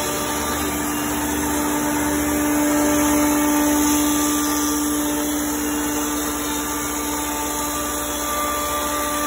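Thickness planer running and planing a board as it feeds through: a steady motor hum with a loud high hiss from the knives cutting the wood.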